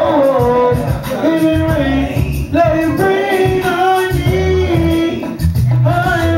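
A man singing a love song into a microphone over a music backing track, with long held notes and a steady bass line beneath.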